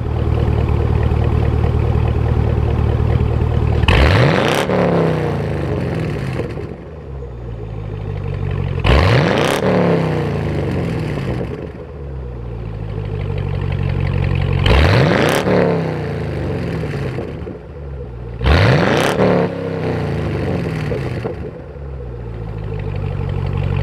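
2010 Chevrolet Camaro SS's 6.2-litre V8 idling through an aftermarket Borla exhaust and revved four times, each rev climbing sharply and sinking back to idle over a couple of seconds, roughly every four to five seconds.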